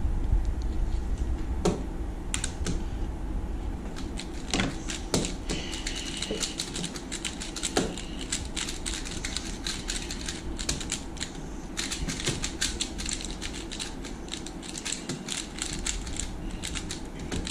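Two 3x3 speedcubes being turned fast, one of them a Valk3 Mini M solved one-handed: a dense, irregular clatter of plastic layer-turn clicks, thickest in the middle stretch.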